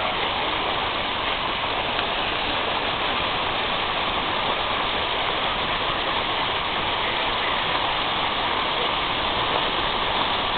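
Steady rushing noise, even throughout, with no distinct sounds in it.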